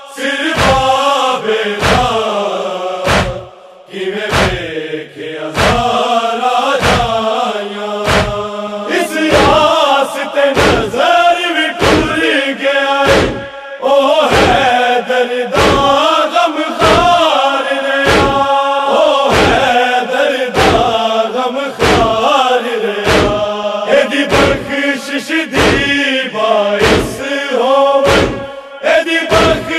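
A men's group chanting a Punjabi noha in unison, a slow mournful lament, over a steady beat of sharp slaps about one and a half times a second: matam, hands striking the chest in time. The voices drop out briefly about three seconds in while the beat goes on.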